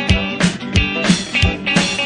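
Instrumental break of a rock-and-roll song: guitar over a steady drum beat of about three hits a second.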